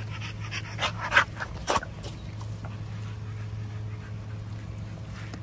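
Pit bull puppy chewing raw chicken, with a few sharp crunches and wet chomps about a second in, over a steady low hum.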